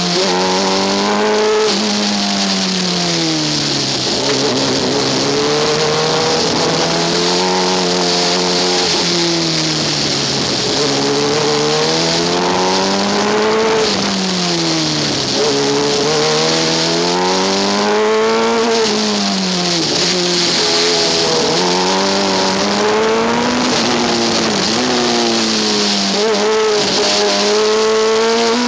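Formula Student race car's engine heard from on board, its revs rising and falling every few seconds as the car accelerates and slows through the test track's bends, over a steady hiss.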